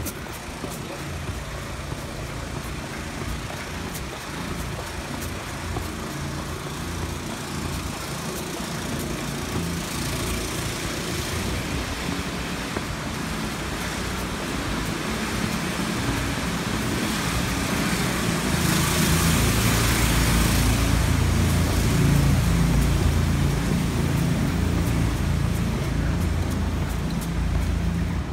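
City street traffic noise: car and truck engines running on the road, with a steady rumble. It grows louder in the last third as vehicles pass close by.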